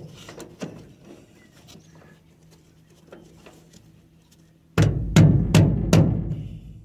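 Faint light clicks of small parts being handled, then near the end a quick run of four or five heavy knocks, each hard and sudden, about two or three a second.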